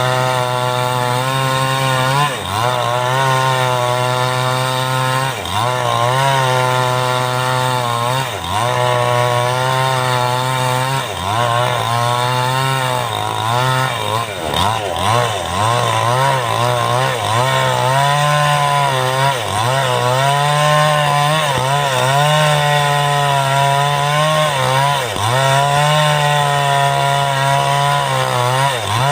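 Two-stroke 5800-type chainsaw with a 22-inch bar running at high revs while ripping a teak log lengthwise. The engine pitch sags every few seconds as the chain bogs down in the cut, then climbs back.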